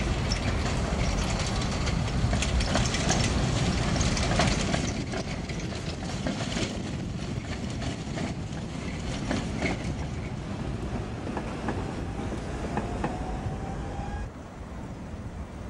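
Tatra KTNF6 articulated tram passing along the track, its wheels clicking and clattering over the rails. The running noise is loudest over the first few seconds, then fades as the tram moves away.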